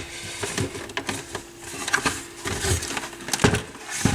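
Clicks, taps and knocks of plastic and metal turntable parts being handled and fitted together during reassembly, with a faint steady hum underneath.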